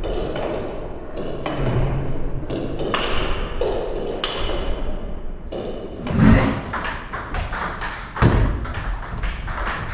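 Table tennis ball struck by rackets and bouncing on the table in a rally, sharp clicks about one or two a second at first, thicker later. Two heavier thuds come about six and eight seconds in.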